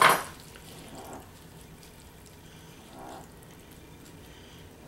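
A short clatter against the dish right at the start, then faint, moist squishing as moist apple-and-sausage stuffing is pressed by gloved hands into the pocket of a raw pork chop.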